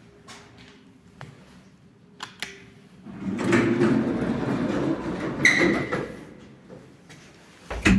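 Sliding doors of an MLZ 400 kg passenger lift from 1992 moving for about three seconds with a loud creaking scrape and a short high squeal near the end of the travel, then a sharp knock near the end.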